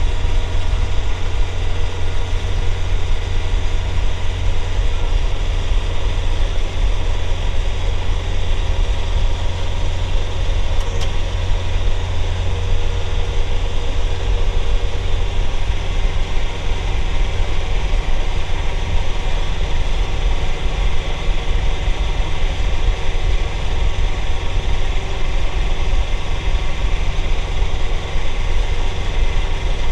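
Compact John Deere tractor's diesel engine running steadily under load, driving a PTO snow blower through heavy wet snow.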